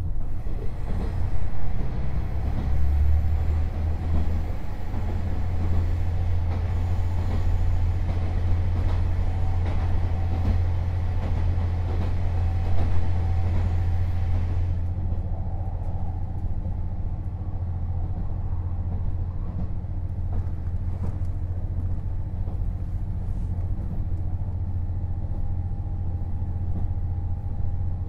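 KiHa 48 500-series diesel railcar under way, heard on board: a steady low diesel drone under the rumble of the running gear. About halfway through, the higher-pitched part of the noise drops away abruptly, leaving mainly the low drone.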